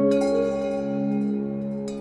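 Background music: slow, ringing bell-like notes over a held low tone, with one note struck near the start and another near the end.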